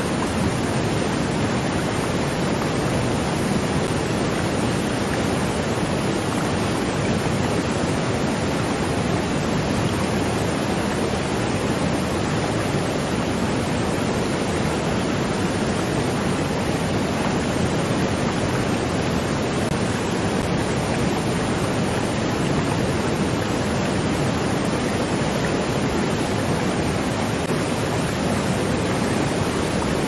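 Waterfall: falling water rushing steadily, an even, unbroken noise that does not change.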